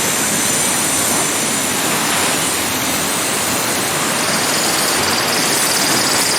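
Steady, loud rush of churning water on a river rapids raft ride, like a waterfall.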